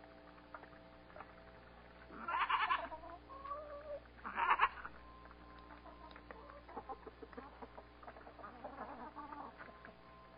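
Backyard hens calling: two loud calls about two and four seconds in, then softer, shorter calls, over a steady hum.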